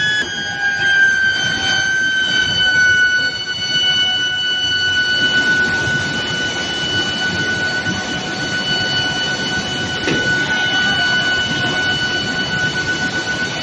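Steel billet induction heater running: a steady high-pitched whine with several overtones over a broad rushing noise. The pitch drops slightly in the first two seconds, then holds. A brief knock comes about ten seconds in.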